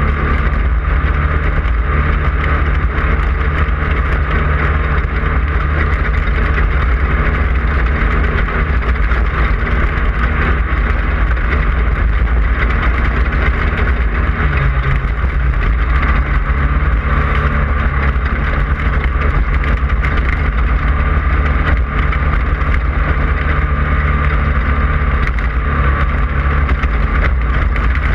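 Class 5/1600 off-road race car's air-cooled Volkswagen 1600 cc flat-four engine running hard at speed, loud and steady, its note shifting about halfway through.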